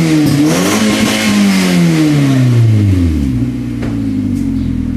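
Mazda3 1.6's four-cylinder engine blipped through an aftermarket exhaust: the revs rise and fall early on, then slide back down and settle to a steady idle a little over three seconds in. A car door shuts near the end.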